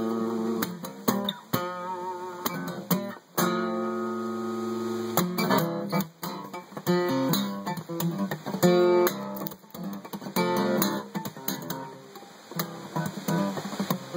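Instrumental music without singing: a guitar, most likely acoustic, playing sustained chords with frequent strums.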